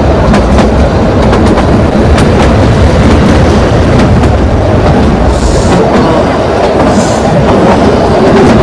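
Kalka–Shimla narrow-gauge toy train running, heard from on board: a steady loud rumble of the coach with irregular clattering clicks of the wheels over the rail joints. Two brief higher hisses come in the second half.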